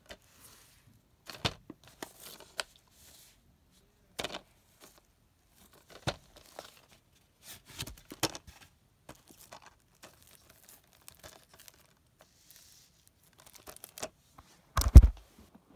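Plastic shrink-wrap being torn and peeled off a Blu-ray case in short, scattered rips and crinkles, with a louder thump near the end.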